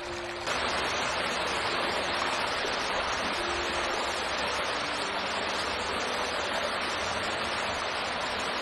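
Shallow, rocky moorland river rushing steadily over stones. It gets louder about half a second in and then holds even.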